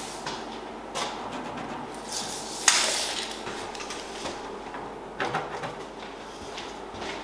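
Scattered clicks, knocks and scrapes of wood and hand tools being handled on a workbench, the sharpest knock a little under three seconds in.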